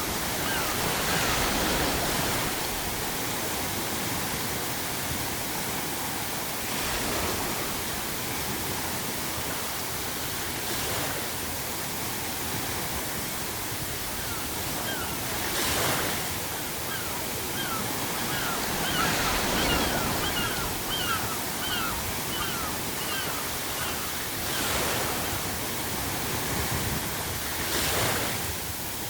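Ocean waves breaking over a constant surf wash, a wave cresting about every four to five seconds. Seagulls call in runs of short, repeated, down-slurred notes near the start and again midway.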